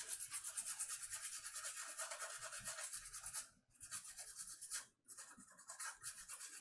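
Toothbrush bristles scrubbing a bare laptop motherboard in rapid back-and-forth strokes, a dry scratchy rasp. It stops briefly twice, about three and a half seconds in and again around five seconds.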